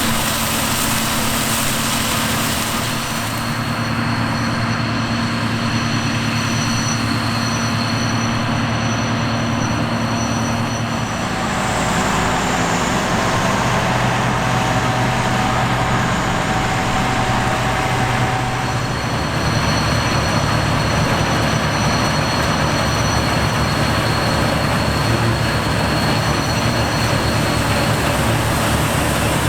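Heavy harvest machinery running steadily: a loud engine drone with a thin, high, steady whine over it. The mix changes abruptly twice, about a third and two thirds of the way through.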